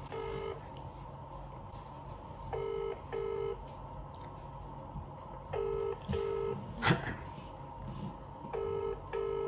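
British ringing tone of an outgoing call heard through a mobile phone's loudspeaker: the line ringing, not yet answered, in the double-ring pattern of two short rings about every three seconds, four times. A single sharp knock comes between the third and fourth rings.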